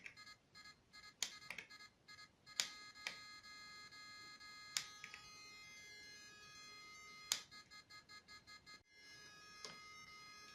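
Electronic car horn (siren unit) playing its built-in electronic tones through a small loudspeaker, working again after its 7805 regulator was replaced. Faint, high beeping tones pulse rapidly, then hold steady for a few seconds, then pulse again, with sharp clicks every second or two as the sound changes.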